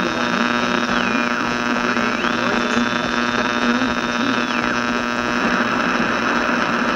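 Steady electrical hum and buzz with hiss on an old recording. A high whistling tone slides down and back up twice across the first five seconds, and the hiss grows stronger near the end.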